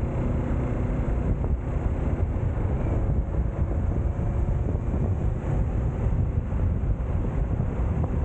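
Wind buffeting the microphone while riding a Kawasaki Z650 motorcycle, its parallel-twin engine running steadily underneath.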